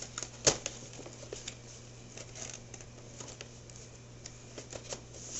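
Cardboard and plastic packaging rustling and clicking as an action figure is put back into its box, with one sharper knock about half a second in. A steady low hum runs underneath.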